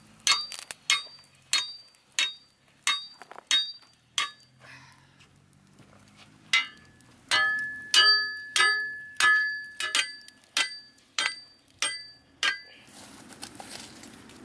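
Back of a steel hatchet hammering a rusty iron grill frame's legs into the ground: a run of sharp, ringing metal clangs about one and a half a second, a short pause, then a second, longer run. Near the end the clangs stop and a soft crackling takes over as the embers are stirred.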